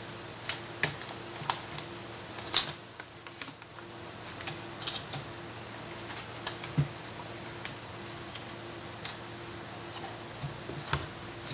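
Scattered light clicks and taps of a circuit board being handled and turned over by hand, the sharpest about two and a half seconds in, over a steady low hum.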